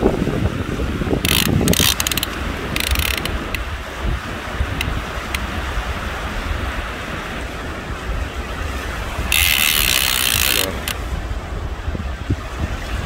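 A fishing reel ratcheting as a hooked shark is fought on the line, over a steady low rumble of wind and surf. A louder hiss comes briefly about a second in and again for about a second from nine seconds in.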